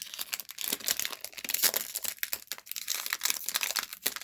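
Foil wrapper of a trading-card pack crinkling and tearing as it is worked open by hand, a dense run of irregular crackles, the pack being a little difficult to open.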